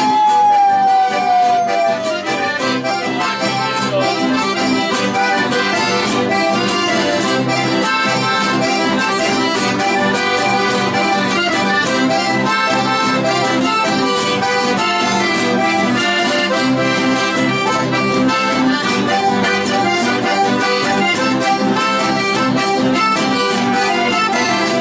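Chamamé music led by an accordion, playing steadily. A high held note slides downward over the first couple of seconds.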